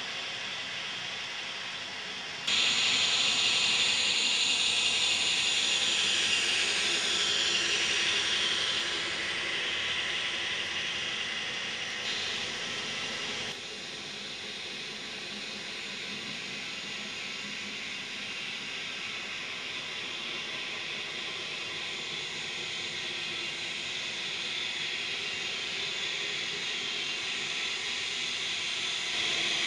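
N scale model train running on the track: a steady hissing whir of motor and wheels on rail. It jumps louder suddenly about two seconds in and drops back a little before halfway.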